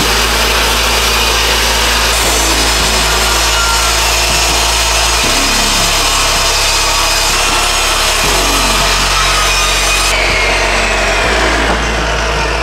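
DeWalt jobsite table saw resawing old 2x6 boards on edge: the blade runs steadily through the wood, with the tone shifting abruptly a few times from one cut to the next.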